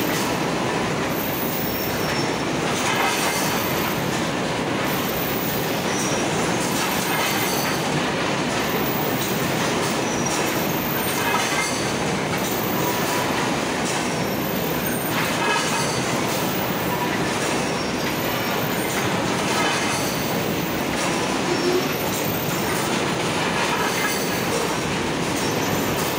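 Fish-net knotting machines running in a factory hall: a loud, steady, dense mechanical clatter, with a faint cycle about every two seconds.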